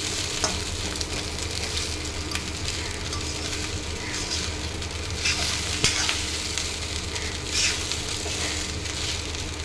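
Leftover fried rice sizzling in oil in a wok, with a metal spatula stirring it and scraping the pan a few times, over a faint steady low hum.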